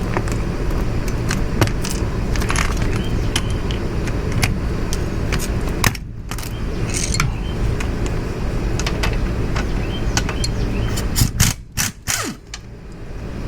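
Socket wrench working a nut on a motorcycle: scattered metallic clicks and clinks of the tool and loose parts over a steady low rumble.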